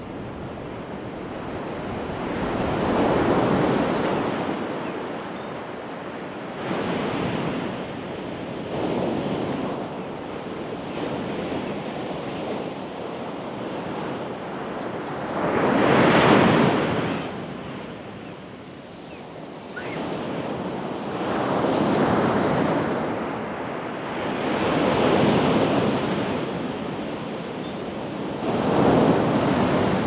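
Pacific Ocean surf breaking and washing up a beach, rising and falling in a swell every few seconds, with the biggest wave about halfway through.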